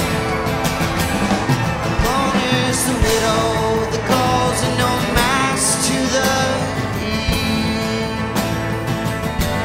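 Live band playing a song, with sustained instrument notes, sliding pitches and regular drum hits.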